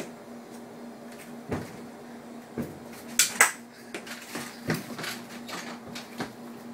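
Irregular knocks and clatters of hard objects, the loudest two in quick succession about three seconds in, over a steady low hum.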